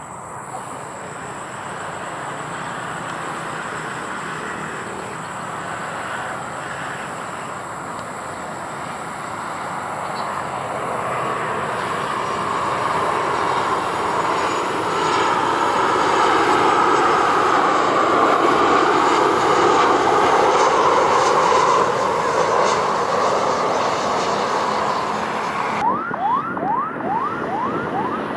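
Jet noise from a Boeing 737-800 on final approach with its landing gear down, growing steadily louder as it passes close, with a wavering, swooshing quality at its loudest. About two seconds before the end it cuts abruptly to the noise of another approaching 737-800.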